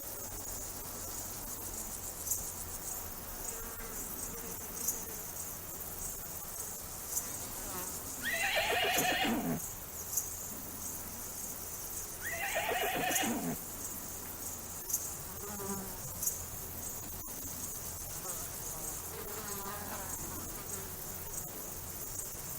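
Horse whinnying twice, about eight and twelve seconds in, each call about a second and a half long and wavering in pitch, with a few fainter calls later. A steady high insect buzz runs underneath.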